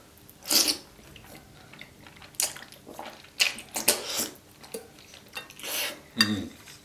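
Close-up eating sounds: chopsticks and a fork clicking and scraping on a ceramic plate as fettuccine in cream sauce is lifted, and wet slurping of the noodles. The sounds come as a string of short, sharp noises, with a longer hissy slurp near the end.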